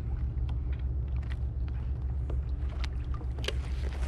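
Steady low wind rumble on the microphone aboard a fishing kayak at sea, with scattered light clicks and knocks.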